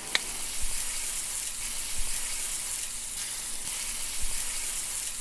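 Steady sizzling of food frying in hot oil, an even hiss with a few small sharp pops.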